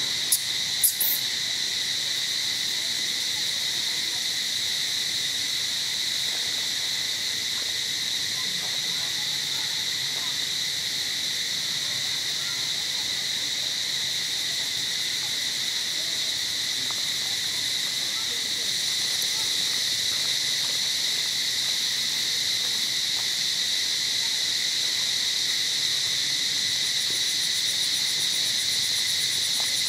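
A steady, high-pitched chorus of insects buzzing without a break, with two short sharp clicks about a second in; a second, higher insect buzz joins about two-thirds of the way through.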